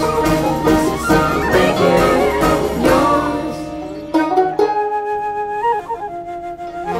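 Instrumental background music: plucked strings for the first few seconds, then held flute-like tones from about four seconds in.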